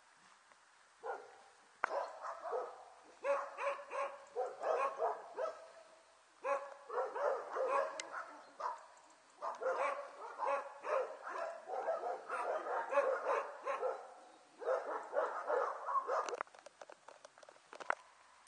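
Border Collie puppies yapping and barking in play, in rapid runs of short, high yips with brief pauses, dying away near the end.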